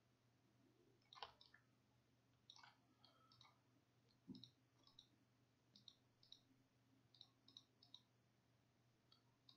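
Faint computer mouse button clicks, a dozen or so scattered at irregular intervals, over a low steady hum, with one soft thump about four seconds in.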